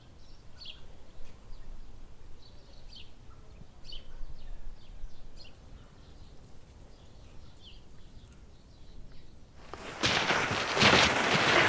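Small birds giving short, high chirps now and then over faint background noise. About ten seconds in, a loud rushing noise starts abruptly.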